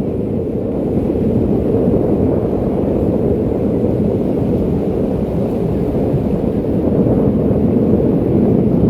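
Steady wind buffeting the microphone, a dull, even rumble with no distinct events.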